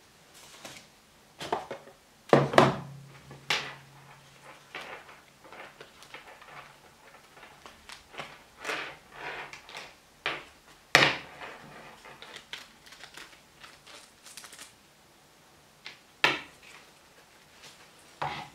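Handling noises from a cardboard box and a camera shoulder strap: rustles, taps and knocks as the strap and its camera mount are lifted and set down on a wooden table. The sharpest knocks come about two and a half, eleven and sixteen seconds in.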